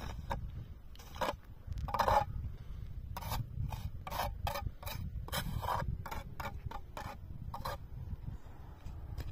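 Snow and grit being scraped off frozen ground with a small hand tool, in short, irregular strokes, several in quick succession.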